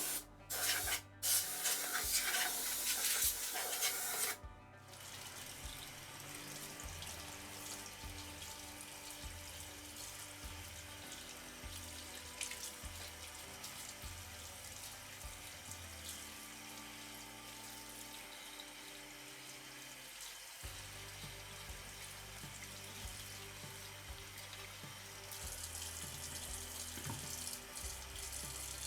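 Tap water running into a sink as vacuum cleaner parts are rinsed. It runs hard and loud for about the first four seconds, then continues as a quieter, steady flow.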